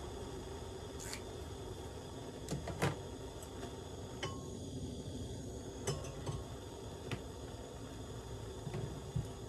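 A few light clinks and knocks of small items and cookware being handled on a camp table, scattered every second or so, over a steady low background rumble.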